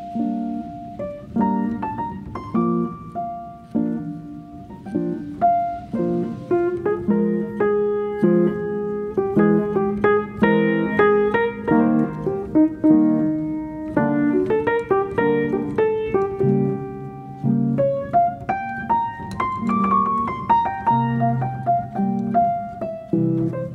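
Background piano music: a slow melody of single struck notes over repeated lower chords.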